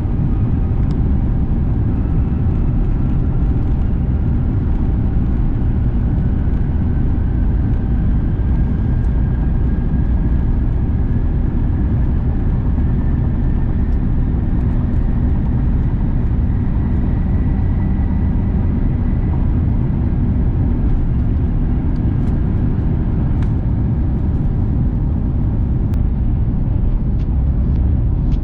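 Airbus A350-900's Rolls-Royce Trent XWB engines and airflow heard inside the economy cabin during takeoff or initial climb: a loud, steady deep rumble with a faint whine slowly rising in pitch. A few faint clicks come near the end.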